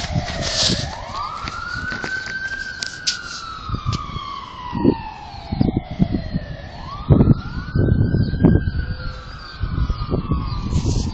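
A siren wailing: its pitch rises quickly and then sinks slowly over about four seconds, a cycle that repeats once about six seconds later. Low rumbling thumps sound underneath.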